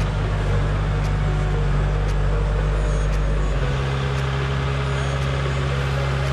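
Kubota compact tractor's diesel engine running steadily while it carries a bucket load of rocks. The engine note shifts about three and a half seconds in.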